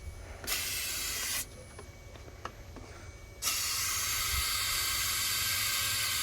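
Aerosol can of starting fluid (ether) spraying: a short burst, then from about three and a half seconds in a long steady spray. The fluid is soaking the engine so that a 2006 Impala V-engine that cranks but won't start will try to fire.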